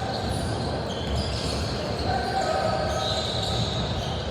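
Gym sounds at a basketball game: sneakers squeak on the court several times and a ball bounces, over steady crowd chatter.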